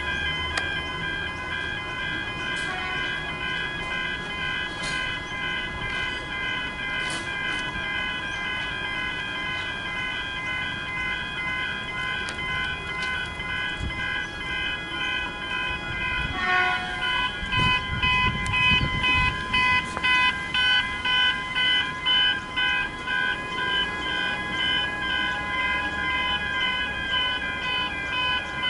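Level crossing warning bells ringing steadily in a repeating pattern while the boom gates are down. About halfway through, a louder, pulsing ring joins at roughly one and a half strikes a second, with a low rumble for a few seconds.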